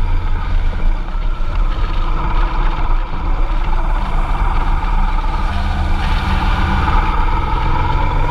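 Honda Transalp 650 motorcycle's V-twin engine running steadily as the bike rides a rough gravel mountain track, with a low rumble throughout. A higher tone grows stronger in the last couple of seconds.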